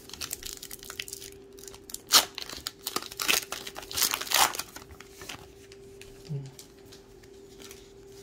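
A 2022 Topps Gypsy Queen baseball card pack wrapper being torn open by hand, crinkling and ripping in short irregular bursts, the loudest tearing about two to four and a half seconds in.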